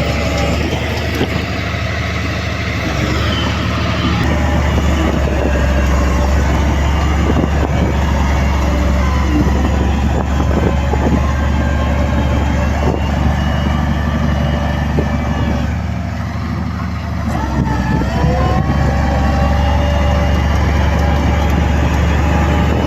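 Heavy diesel earthmoving machinery running with a steady low drone, with a few scattered knocks partway through. About sixteen seconds in the engine eases off, then revs back up with a rising pitch.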